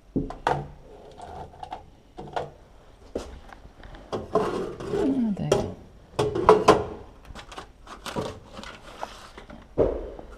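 Irregular knocks and scrapes of things being handled and packed, with a man's heavy breathing and a falling groan about halfway through.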